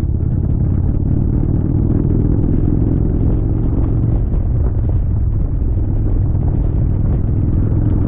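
Indian Chieftain motorcycle's V-twin engine running steadily while under way, a continuous low-pitched note.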